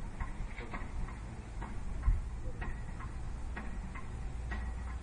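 A series of light, irregular taps or clicks, about two a second, over a steady low rumble.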